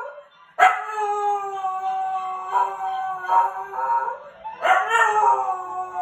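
Welsh Terrier howling: a long drawn-out howl starting about half a second in, then a second howl near the end that falls in pitch.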